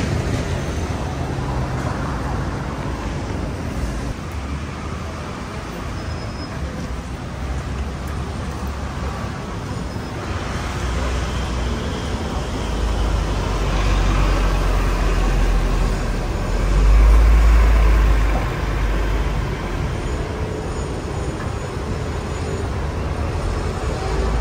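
Steady road traffic on a busy city street, with a heavy vehicle's low engine rumble building and passing close about two-thirds of the way through.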